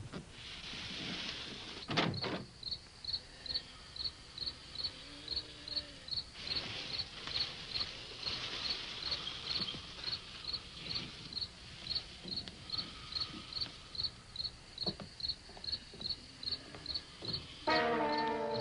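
Crickets chirping in a steady, even rhythm, about two to three chirps a second, with a single sharp knock about two seconds in. Near the end a loud sustained chord of music comes in over them.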